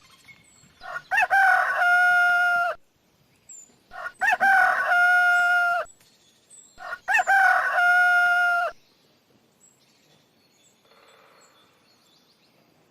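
Rooster crowing three times, about three seconds apart, each crow a short rising start and a long held final note.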